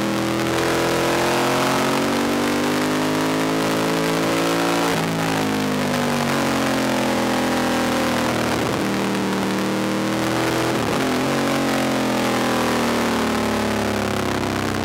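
Racing motorcycle engine heard from the bike, its revs rising and falling through the corners, with short breaks in the engine note at gear changes about five, nine and eleven seconds in. Wind rush over the microphone.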